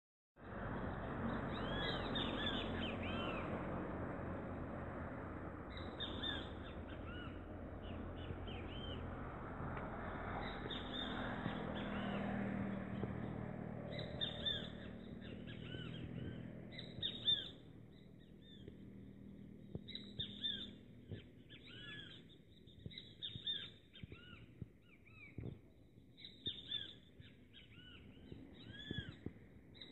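Birds calling over and over in short, arched chirps. A steady low rumble and hiss sits under them for the first half and drops away about 17 seconds in.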